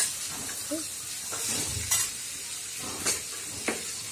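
Boiled black chickpeas sizzling in hot oil in a stainless steel kadhai, with a steady hiss. A metal spatula clinks and scrapes against the pan about once a second as the chickpeas are stirred.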